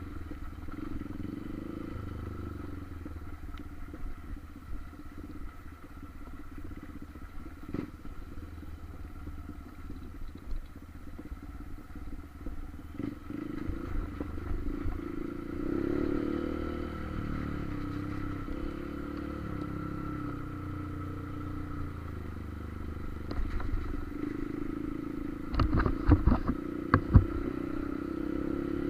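Motorcycle engine running as it is ridden, its pitch rising and falling with the throttle, with a cluster of sharp knocks near the end.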